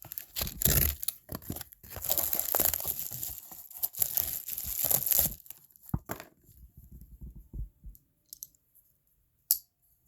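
Packaging being torn and crinkled by hand as a parcel is unwrapped, busy for about the first five seconds, then a few scattered clicks and soft rustles.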